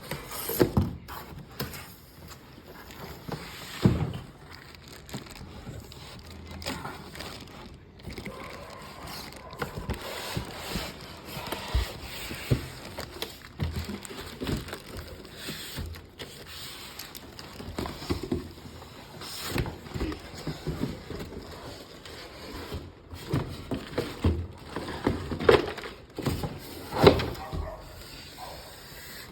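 Packaging being handled while a boxed keyboard is unpacked: irregular knocks, thumps, scrapes and rustles, with the loudest knocks about a second in, around four seconds and again near the end.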